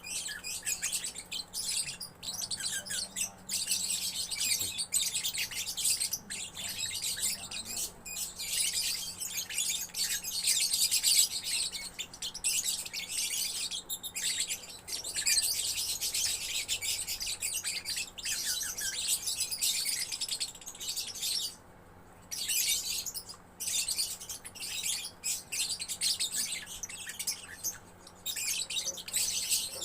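Young lovebird singing in long runs of rapid, high-pitched chattering, with a couple of brief pauses about two-thirds of the way through.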